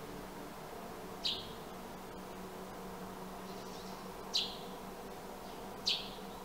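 A sparrow gives three short, sharp chirps a few seconds apart, each dropping quickly in pitch, over a steady low background hum.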